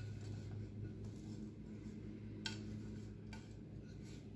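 Faint scraping and light knocks of a spatula working sticky granola-bar mixture out of a nonstick saucepan into a baking pan, with two small clicks around the middle, over a steady low hum.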